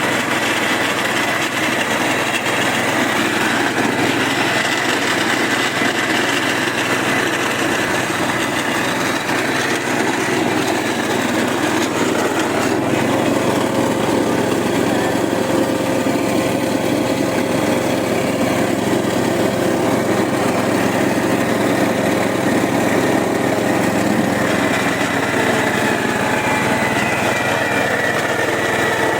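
Wet-process coffee cherry pulping machine on a test run, driven by a small engine: a steady mechanical drone whose tone shifts slightly about halfway through.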